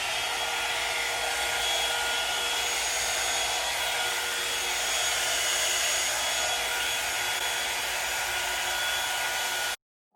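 Drybar Double Shot blow dryer brush running steadily: an even rush of air with a faint steady motor whine, which cuts off abruptly near the end.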